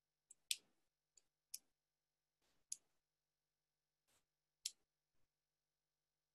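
A handful of short, sharp clicks at irregular intervals, the loudest four roughly a second apart, against near silence.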